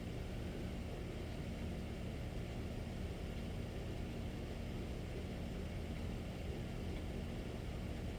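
A steady low rumble with a faint hum, unbroken and without any sharp sounds.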